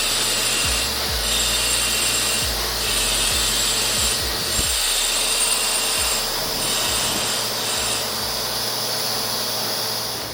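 TIG welding arc hissing steadily during a hot pass on 8-inch schedule 40 steel pipe at about 145 amps. A higher-pitched whine in the arc noise breaks in and out every second or so.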